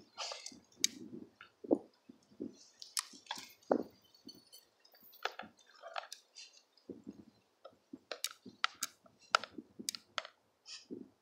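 A dog chewing pork skin: irregular short clicks and crunches of its teeth working the tough rind.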